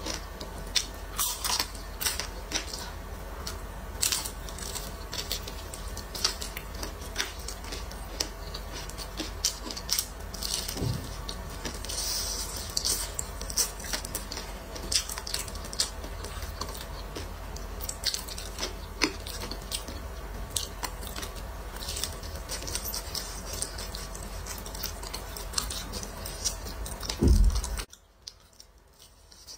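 Close-miked eating of crispy fried chicken: bites and chewing give a run of sharp crackles and clicks over a steady low hum. Near the end there is a low thump, then the hum cuts off suddenly.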